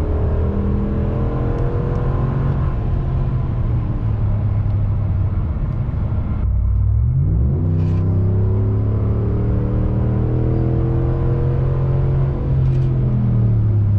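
Ram 1500's Hemi V8 running with a loud, steady exhaust note. About six and a half seconds in the sound breaks off briefly, then the engine note rises in pitch and settles back into its steady run.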